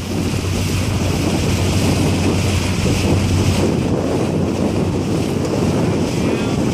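Steady wind noise buffeting the microphone, with the rush of water alongside a dragon boat being paddled.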